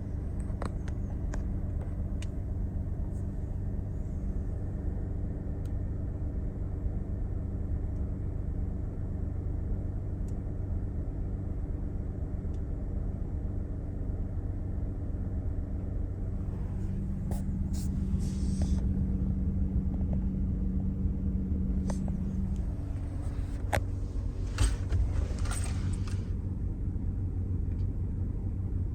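Toyota Land Cruiser 300 on the move: a steady low rumble of engine and road noise, with a few short clicks and rustles in the latter part.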